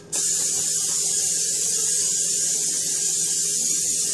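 A steady, even hiss that switches on abruptly just after the start and holds at a constant level.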